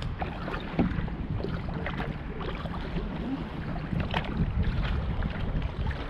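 Kayak paddling on a river: small irregular splashes of water around the boat, over a steady rumble of wind on the microphone.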